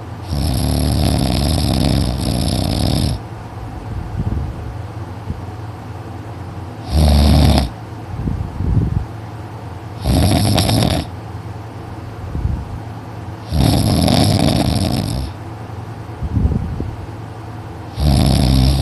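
A teenage boy snoring heavily in his sleep: five loud, rasping snores about every three to four seconds, the first the longest, with quieter breathing between them.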